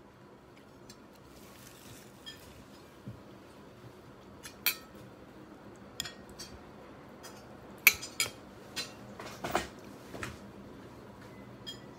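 A metal spoon and fork clinking and scraping against a plate and a ceramic bowl while eating, in scattered sharp clicks, the loudest about eight seconds in.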